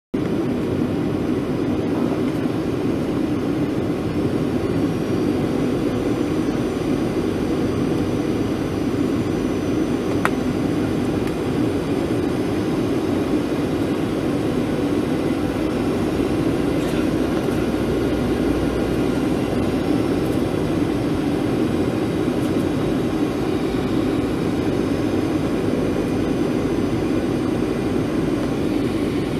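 Steady cabin noise of a Boeing 737-800 on descent, heard from inside the cabin. Its CFM56-7B turbofans and the rushing air make an even, deep hiss, with one faint click about ten seconds in.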